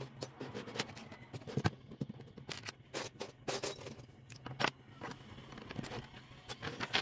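Lego bricks clicking and clattering as they are handled and pressed together: a rapid, irregular run of small, sharp plastic clicks.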